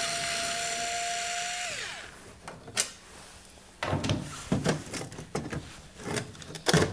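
A handheld power drill runs at a steady speed, then spins down and stops about two seconds in. Scattered clicks and knocks follow as parts are handled.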